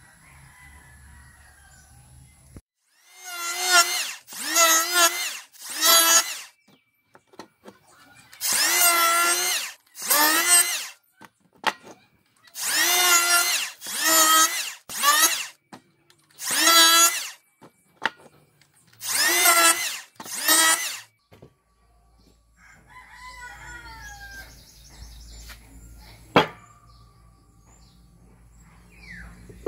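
Makita electric hand planer shaving old scrap wood in about a dozen short passes, each a loud, pitched whine that wavers under the cut, with short gaps between. Near the end, after the passes stop, there are faint knocks of wood blocks being handled and one sharp click.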